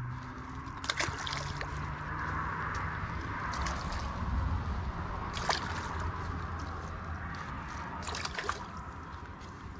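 Water sloshing in a bucket of freshly caught crucian carp as the fish are moved and sorted, with a few light sharp knocks.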